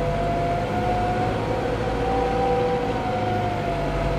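A vehicle engine running steadily, a low rumble with a steady whine over it.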